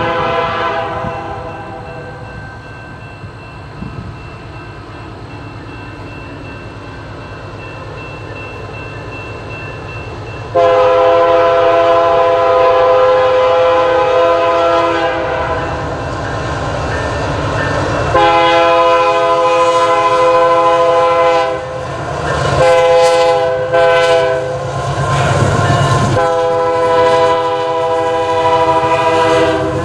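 Locomotive air horn sounding a chord of several notes, blown in a series of long blasts with short breaks, over the low rumble of a passing train. A quieter horn chord fades out at the very start, and the loud blasts begin about a third of the way in.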